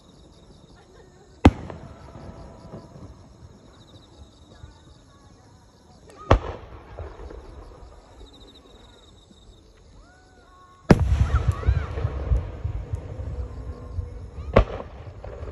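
Aerial firework shells bursting: single sharp booms about a second and a half in and again about six seconds in, then a loud boom just after ten seconds that runs into a continuous rumble and crackle of several shells, with another sharp bang near the end.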